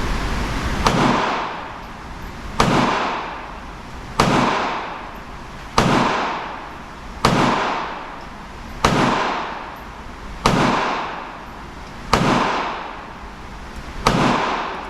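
Sharp bangs repeating evenly about every second and a half, nine in all, each trailing off in a long echoing decay.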